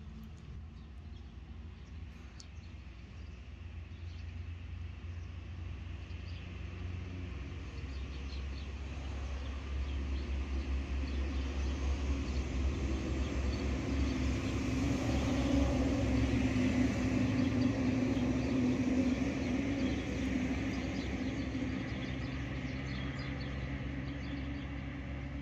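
A motor vehicle passing: engine and tyre noise build slowly, are loudest about two-thirds of the way through, then ease off, over a steady low rumble.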